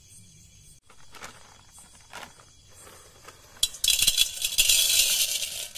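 Dry fusilli pasta poured from its plastic packet into an aluminium pot: a dense, loud rattle of the hard pieces hitting the metal. It starts a little after halfway, runs about two seconds and stops abruptly. Before it come a few faint taps and rustles.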